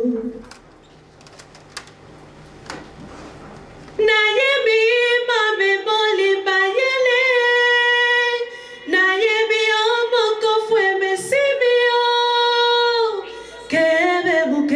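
A woman singing unaccompanied into a microphone: after about four seconds of near-quiet room noise she sings long held notes with slow bends in pitch, breaks off briefly near the end, then starts again.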